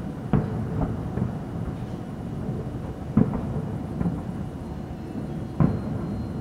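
Aerial firework shells bursting: a series of sharp bangs, the loudest about three seconds in and again near the end, over a continuous low rumble from the display.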